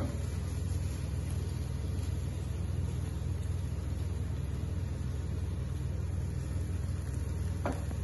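Minced beef sizzling in a hot frying pan as it is turned over with a wooden spatula, over a steady low rumble.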